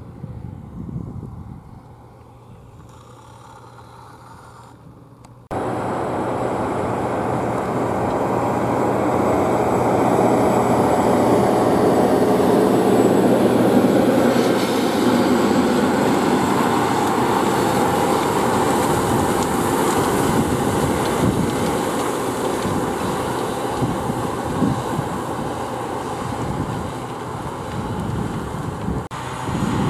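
Case IH Quadtrac 620 tractor's diesel engine working under load as it pulls a Horsch Tiger disc cultivator through the soil, with the noise of the cultivator's discs. A fainter, steady engine hum at first turns suddenly loud about five seconds in, swells as the rig passes close, then eases a little.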